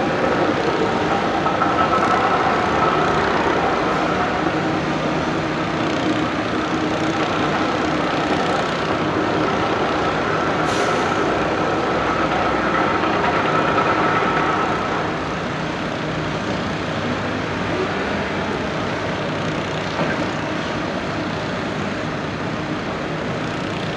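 Heavy construction machinery, an excavator drilling rig, running steadily with a held whine over the engine noise; it eases a little about fifteen seconds in.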